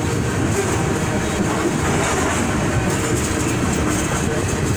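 Freight train of covered hopper cars rolling past at a grade crossing: a steady rumble of steel wheels on the rails.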